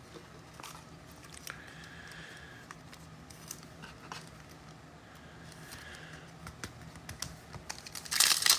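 Scattered light clicks of computer keyboard typing, then about eight seconds in a loud crinkling and tearing as a foil trading-card pack is ripped open.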